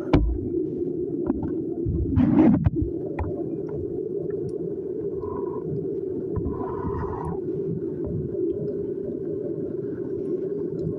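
Thick ground-meat and tomato sauce simmering in a large pan, bubbling low and steadily. A utensil knocks and scrapes against the pan about two seconds in.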